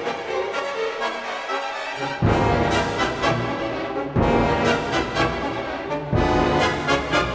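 Orchestral background music led by brass, with heavy low accented entries about every two seconds.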